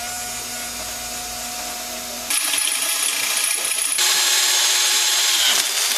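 Cordless drill boring into the steel frame of a pit bike, the motor running steadily. Its tone changes abruptly about two seconds in, and again near four seconds, where it gets louder.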